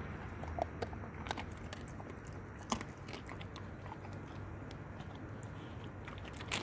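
A dog chewing chicken wing and shoulder, with irregular sharp crunches of bone, the loudest nearly three seconds in and again near the end.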